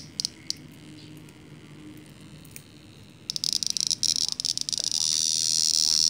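A cicada buzzing. A couple of clicks sound near the start, then a stuttering high buzz begins about three seconds in and settles into a loud, steady one.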